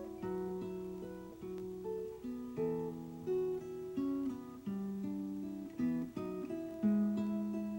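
Background music: acoustic guitar picking a slow melody, one plucked note or chord after another, each ringing on.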